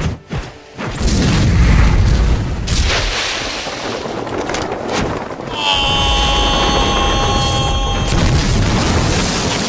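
Film sound effects of a martial-arts fight: a loud rushing boom with a deep rumble as a blast throws up fallen leaves. A high ringing chord comes in about halfway through and holds for about two seconds.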